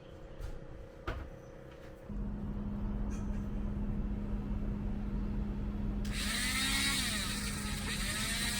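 An electric motor starts about two seconds in and runs with a steady hum; about six seconds in a loud, high-pitched hissing, scraping noise with a wavering pitch joins it.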